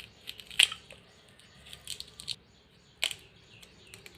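Knife slitting okra pods and scraping out the seeds: faint scrapes and a few sharp clicks, the loudest about half a second in and about three seconds in.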